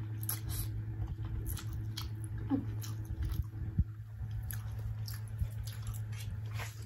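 Close-up mouth sounds of someone eating instant noodles: slurping in noodle strands, then wet chewing and small lip smacks at an uneven pace. A steady low hum runs underneath.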